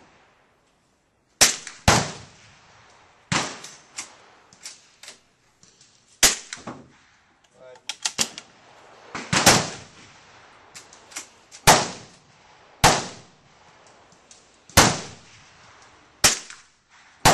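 Gunfire on a shooting range: about ten sharp shots, irregularly spaced, some only half a second apart, so more than one gun is firing. Among them is a CZ 452 bolt-action .22 LR rifle.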